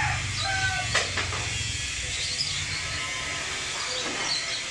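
Steady background hiss with a few short clucks from chickens in the first second and faint high bird chirps later, and one sharp tap about a second in.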